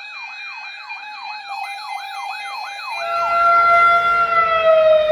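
Siren with a fast up-and-down yelp, about two and a half sweeps a second. About three seconds in it changes to a long steady tone that slowly falls in pitch, while a rumbling noise builds and grows louder beneath it.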